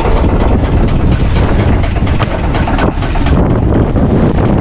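Small fishing boat's engine running under a loud, unbroken rumble, with a rapid clatter from the gill net being hauled in over the gunwale. Wind buffets the microphone.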